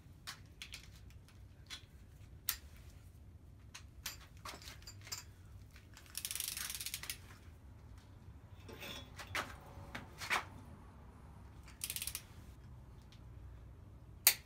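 Click-type torque wrench and socket being worked on cylinder head nuts: scattered metal clicks and two short bursts of ratcheting, with one sharp click near the end, the loudest sound.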